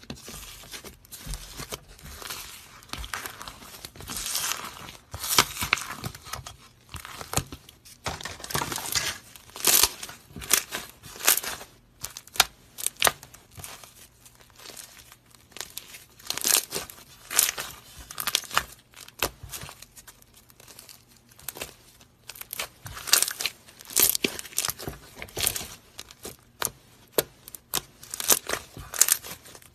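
Slime being squished, stretched and poked by hand close to the microphone, making irregular sticky crackles and sharp popping clicks, with a few longer crinkly stretches.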